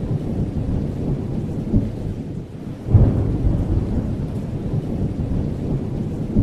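Intro sound effect: a deep, thunder-like rumble with a heavy boom about three seconds in that slowly dies away.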